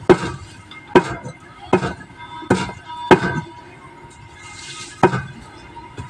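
Knife chopping on a cutting board: sharp chops at an uneven pace of roughly one a second, with a pause about two-thirds of the way through.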